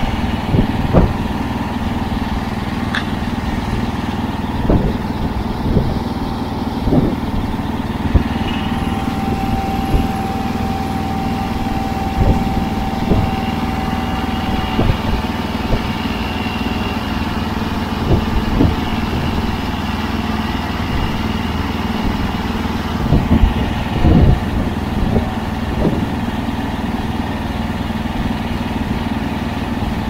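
A small vehicle engine running steadily, with irregular knocks and thumps every second or two.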